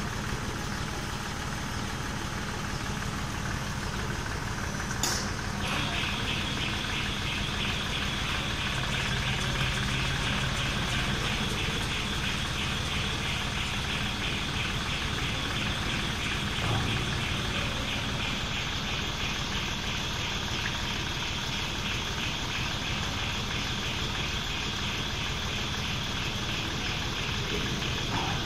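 Electric overhead crane with a wire rope hoist running: a steady mechanical hum, joined about six seconds in by a higher, evenly pulsing motor whine.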